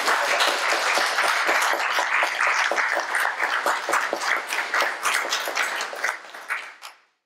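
Audience applauding: many hands clapping together in a dense, steady patter that tails off near the end.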